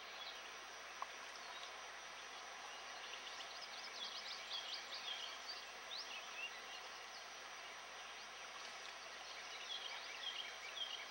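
A small bird chirping in two quick flurries, about midway and near the end, over a steady hiss of flowing river water.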